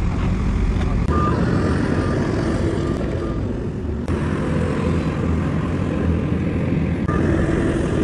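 Diesel engines of two dump trucks running steadily under load as their tipper beds rise to dump soil, with a few short high beeps.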